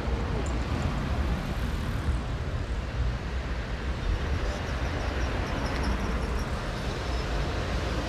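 Passing road traffic: a steady low rumble of engines and tyres.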